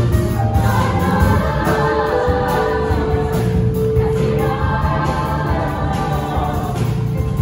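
Mixed show choir singing over instrumental accompaniment, with a long held note from about two seconds in to near the middle.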